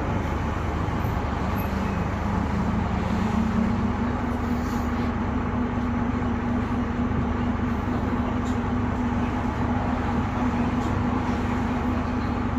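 Bristol VR double-decker bus heard from inside the lower deck while under way: steady engine and road rumble, with a whine that dips and then steps up in pitch about two to three seconds in, then holds steady.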